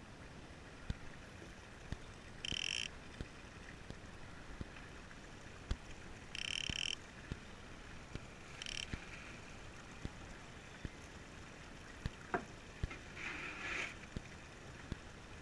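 Fishing reel giving short bursts of drag as a hooked yellowfin tuna pulls against the rod, three times in the first nine seconds, with scattered light knocks around the boat.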